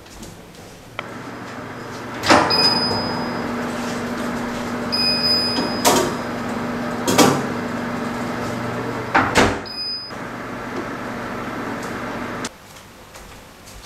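Built-in oven running with a steady hum, its control panel beeping three times, with sharp clunks and knocks as a metal baking pan is slid onto the oven rack and the door handled. The hum cuts off near the end.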